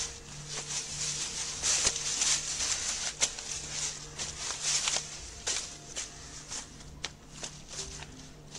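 Uneven rustling of someone walking with a handheld camera, with scattered sharp clicks and a faint low hum; it grows quieter in the second half.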